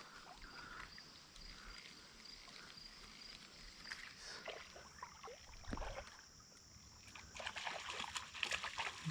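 Faint sloshing and light splashing of river water around a wading angler, with a few soft knocks, growing a little busier near the end.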